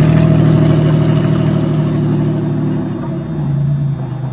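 Buick car engine running steadily under way, its pitch and level dipping briefly about three seconds in before picking up again.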